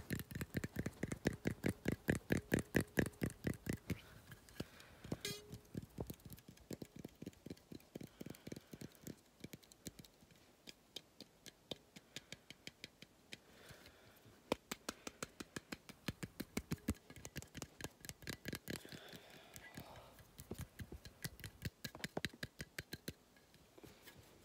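Fast, rhythmic tapping or clicking right at the microphone as an ASMR trigger, several clicks a second. It is loudest and fullest in the first few seconds, then goes on softer in uneven runs.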